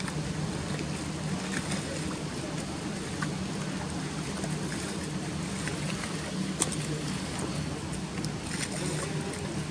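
Motor cruiser's engine running at low speed, a steady low hum, with a sharp click about two-thirds of the way through.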